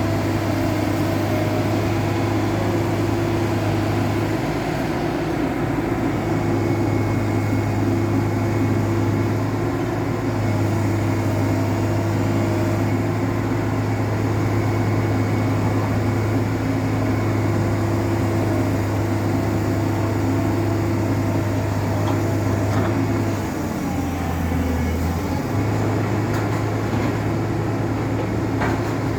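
Diesel engine of a JCB 3DX backhoe loader running steadily with a constant low drone. About twenty-four seconds in, its note drops lower for a couple of seconds, then comes back up.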